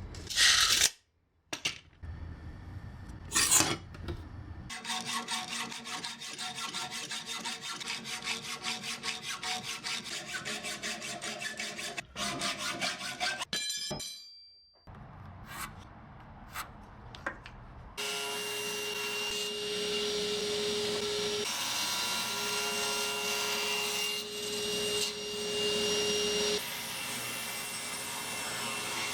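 Sawing maple and a hot-rolled steel bar to size. Two short bursts come first, then a long run of rapid, even cutting strokes. After a short pause a power saw runs steadily with a held whine that dips briefly under load partway through.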